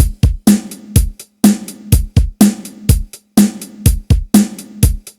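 Background music with a steady drum beat: kick drum and snare hits in a pattern that repeats about once a second.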